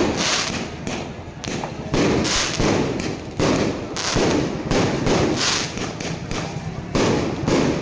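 Aerial fireworks exploding in an irregular string of loud booms, about one every half second to second and a half, each trailing off in an echoing rumble.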